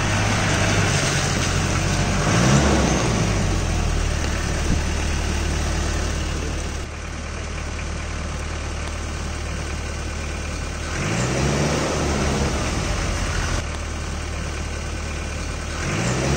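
Motor vehicle engine running steadily, its pitch rising and falling about three times, as when revving or changing gear.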